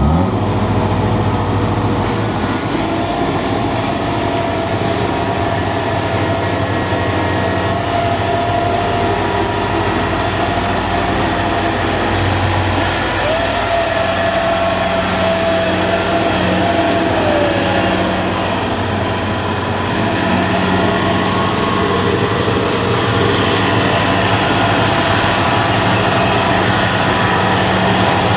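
Kubota DC70 combine harvester's diesel engine revving up at the start and then running steadily at high revs under load. A higher whine joins it for a few seconds around the middle.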